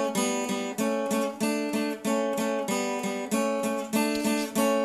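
Strummed acoustic guitar playing chords in a steady rhythm, the backing of a song.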